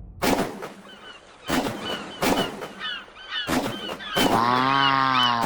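An edited tank-gun shot sound effect, played as a string of about five sharp blasts with ringing tails and short high squeaky chirps repeating between them. Near the end a held pitched tone lasts about a second, arching up and down.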